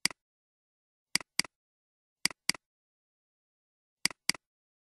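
Computer mouse clicking: a single click, then three double-clicks, each pair about a quarter second apart, as folders and a file are opened in a file dialog.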